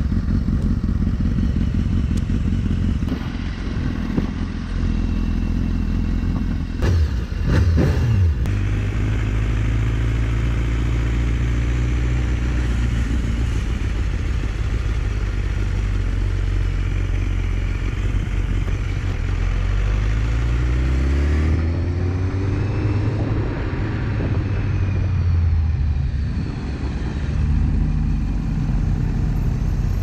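BMW HP4's inline-four engine running steadily, with a brief sharp rise and fall in pitch about seven seconds in and a climb in pitch around twenty seconds in as it accelerates.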